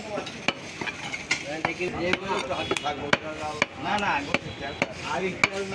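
Large curved butcher's knife chopping beef on a wooden stump block: sharp knocks about twice a second, unevenly spaced, with people talking in the background.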